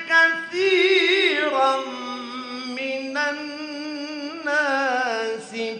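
A man reciting the Quran in the melodic mujawwad style, drawing out long ornamented notes with wavering, gliding pitch in a few phrases.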